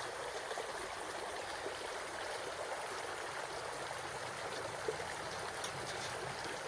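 Creek water running steadily, an even rushing hiss.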